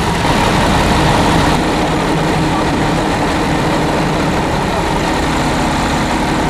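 Heavy fire-engine motor running steadily at the scene, a loud even drone with a thin steady whine over it.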